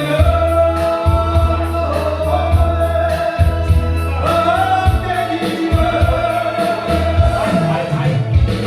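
A song with a singer holding long notes that slide between pitches, over a steady beat and bass.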